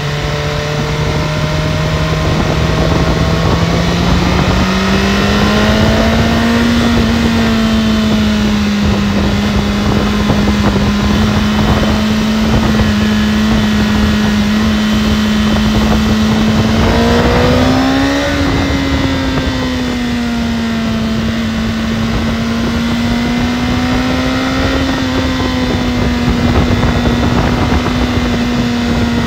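BMW S1000RR's inline-four engine running at steady road revs over wind noise. The pitch steps up about four seconds in, then briefly rises and settles back down around eighteen seconds in.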